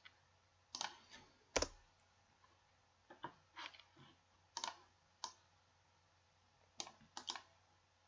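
A computer mouse clicking: short, sharp clicks, single and in quick pairs, scattered irregularly. The loudest, about a second and a half in, has a low thud to it.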